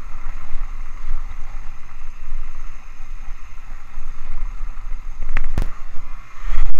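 Wind buffeting the action camera's microphone over the rumble and rattle of a Rocky Mountain Altitude full-suspension mountain bike rolling fast down dirt singletrack. There is one sharp knock about five and a half seconds in, and the noise grows louder near the end.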